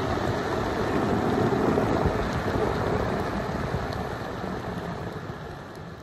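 Steady rushing noise of an electric skateboard riding along an asphalt road: wheels rolling on the pavement mixed with wind on the microphone. It slowly fades over the last few seconds.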